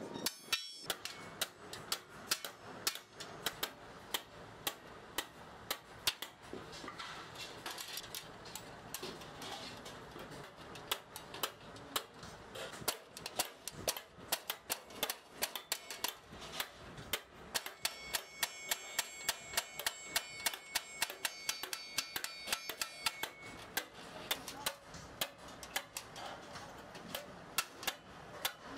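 Light hammer strikes on metal, quick and irregular, two or three a second. For several seconds partway through, the struck piece rings with steady high tones.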